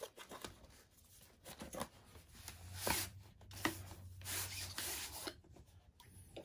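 A rolled, rubber-backed play mat being slid out of its cardboard box: the mat and cardboard rub and scrape, with a longer stretch of sliding about halfway through and light knocks and rustles of handling.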